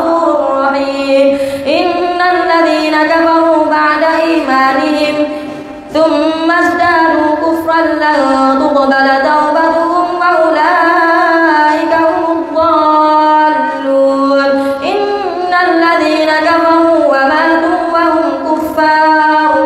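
A boy's voice reciting the Quran in a melodic chant, holding long, drawn-out notes that bend up and down, with a short breath pause about six seconds in.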